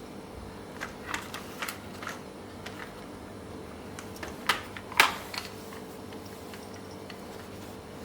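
A series of light clicks and taps from small objects being handled, the loudest two about four and a half and five seconds in, over a faint steady hum.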